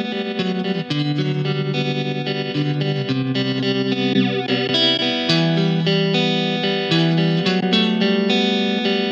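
Electric guitar played through a VOX Mini3 G2 modelling amplifier with one of its modulation effects switched on, ringing out sustained notes that change about once a second.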